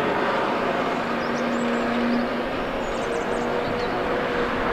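Heavy tracked excavator's diesel engine and hydraulics running steadily, with a faint steady hum and a few faint high squeaks about one and a half and three seconds in.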